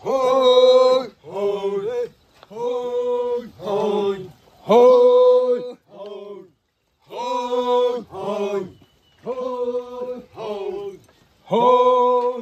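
A male voice singing a chant in short held notes, phrase after phrase, each note dropping in pitch at its end, with a pause of about a second near the middle.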